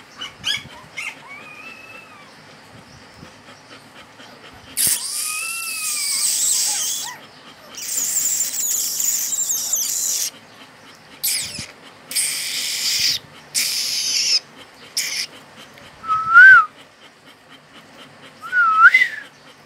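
Newborn golden retriever puppies squeaking with short, high, arching cries. The two loudest squeaks come near the end. Through the middle there are several breathy hissing bursts, each lasting a second or two.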